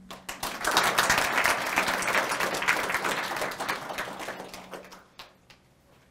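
Audience applauding, a dense patter of many hands clapping that builds quickly after the start and dies away about five seconds in.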